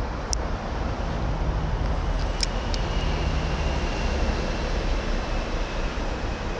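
Steady outdoor rush of a small flowing creek, with wind rumbling on the microphone and a few light clicks.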